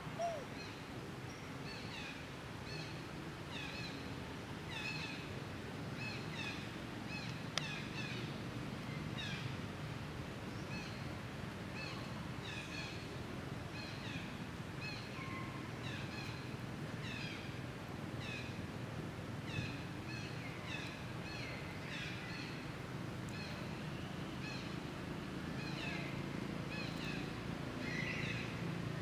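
Repeated short high-pitched animal calls, about one or two each second, over a steady low background hum.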